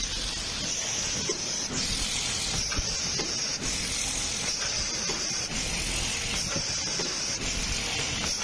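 Automatic bottle screen-printing machine running: a steady hiss whose higher part cuts out briefly about every two seconds, in step with the machine's cycle, with light mechanical clicks throughout.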